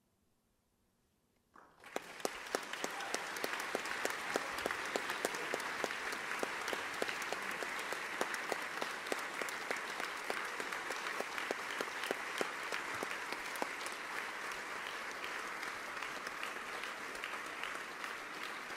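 Near silence, then about a second and a half in an audience breaks into applause: dense clapping that carries on steadily.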